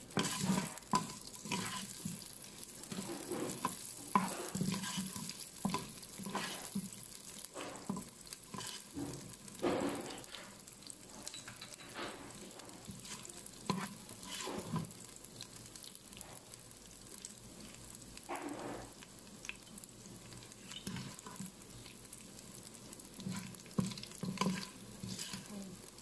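Pounded dried anchovies frying in hot oil with tempering seeds in a Noxxa electric pressure cooker's inner pot. The oil sizzles steadily while a wooden spatula stirs and scrapes, knocking against the pot at irregular intervals.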